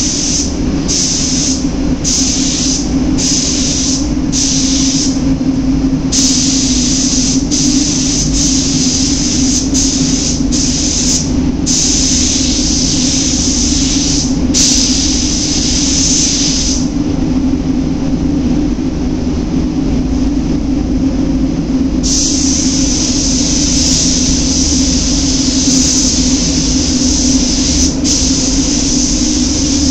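Compressed-air gravity-feed spray gun hissing as it sprays paint, switched on and off in short bursts of about a second at first, then in longer passes. It stops for about five seconds in the middle, then runs in one long continuous pass. A steady low hum runs underneath.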